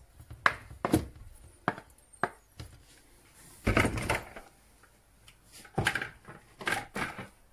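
Scattered knocks and clatters of kitchen utensils: a wooden spoon and bowls knocking against a stainless steel pot, with the loudest clatter about four seconds in.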